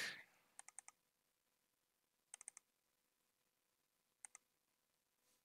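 Faint, quick clicks from working a computer: a run of four about half a second in, four more around two and a half seconds, and two near four seconds.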